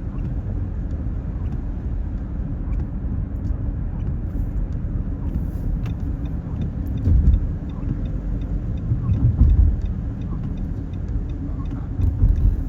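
Car road noise inside the cabin while driving: a steady low rumble that swells a few times. From about halfway through comes a faint, regular ticking, a few ticks a second.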